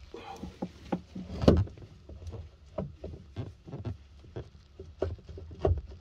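Irregular metal knocks, clunks and scrapes as a heavy replacement starter motor is pushed and twisted by hand against the flange of a Nuffield three-cylinder engine, which it won't turn fully round into. The loudest knock comes about a second and a half in.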